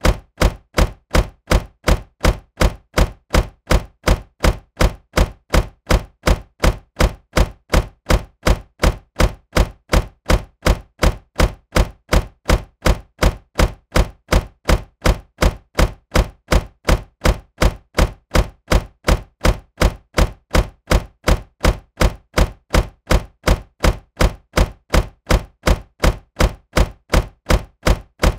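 Car door slamming shut, the same slam repeated at a steady rate of about two a second.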